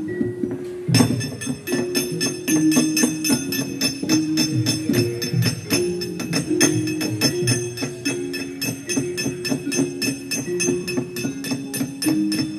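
Javanese gamelan-style music accompanying a wayang kulit shadow-puppet show: held, bell-like tuned notes stepping from one pitch to another over a rapid, steady metallic clatter.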